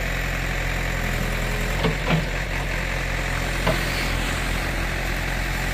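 JCB 3DX backhoe loader's diesel engine running steadily as the backhoe digs, with three short knocks about two seconds in and near four seconds.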